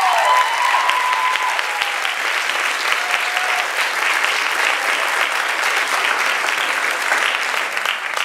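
A crowd applauding with dense, steady clapping. A few cheering voices whoop in the first second.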